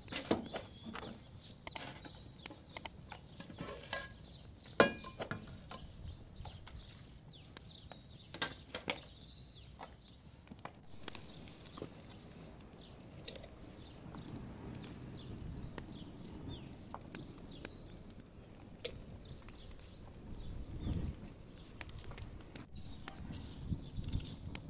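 Scattered knocks and clinks of pots, utensils and jars being handled at an outdoor wood-fired stove, with one louder knock about five seconds in. A short high whistle-like chirp sounds about four seconds in.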